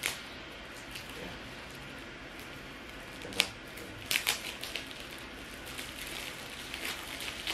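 Clear plastic shrink-wrap crackling as it is torn and peeled off a small cardboard box by hand, in scattered sharp crackles: the sharpest about three and a half seconds in, a quick cluster just after, and a run of smaller ones near the end.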